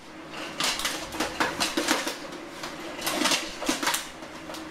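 Suit of 22- and 18-gauge mild-steel plate armor clanking and rattling as the wearer swings and punches, its plates knocking metal on metal in quick irregular clusters of clinks. A suit like this is pretty loud when it moves.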